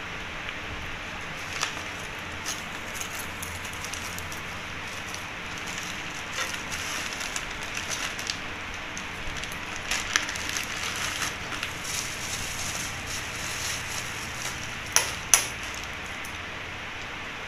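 Plastic bags and bubble wrap crinkling and rustling as hands unwrap slingshots and their parts, over a steady hiss. Two sharp clicks come close together near the end.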